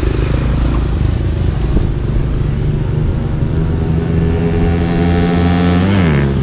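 A GPX Rato Esquire 250 motorcycle with a Keihin 28 mm carburettor approaches at speed on a flyby test. Its engine grows louder, then drops in pitch as it passes about six seconds in. At the start, the engine of a passing motorcycle tricycle is mixed in.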